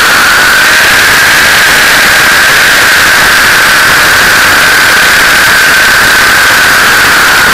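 T-Rex 600 RC helicopter in flight, heard from a camera mounted on its own landing skid: a loud, overloaded rush of rotor and drivetrain noise with a steady high whine.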